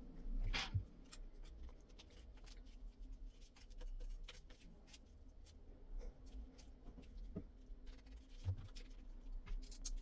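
Faint handling sounds of a robot vacuum's main brush and small parts being cleaned of hair: scattered light clicks and scrapes, with a brief louder rustle about half a second in.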